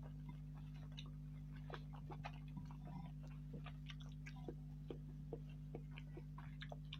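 Close-miked chewing of mie ayam noodles: soft, irregular mouth clicks and smacks, over a steady low hum.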